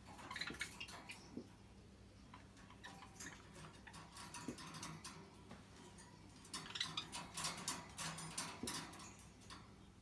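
Pet budgerigars chattering faintly: short chirps mixed with rapid clicking, busiest in the first second and again from about six and a half to nine seconds in.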